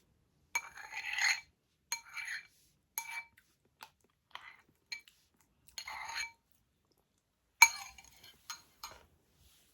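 A metal utensil scraping and clinking against a dish as mashed potatoes are scooped up, about eight short strokes with a ringing note. The sharpest clink comes about two-thirds of the way through.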